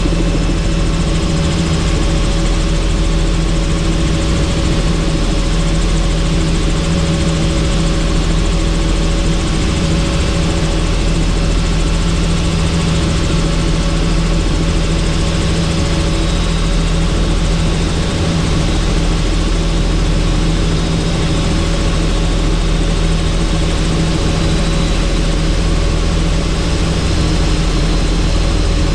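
Helicopter in flight, heard on board: a steady, even drone of rotor and turbine engine with rushing air noise, unchanging throughout.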